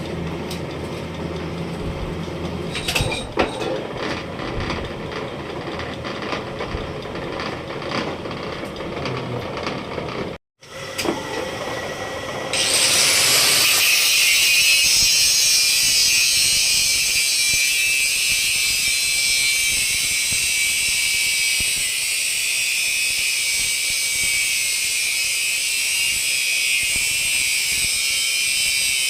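Workshop machinery running with a steady mechanical noise and a few knocks. After a brief break it gives way to a louder, steady, high-pitched hiss from a power tool working metal.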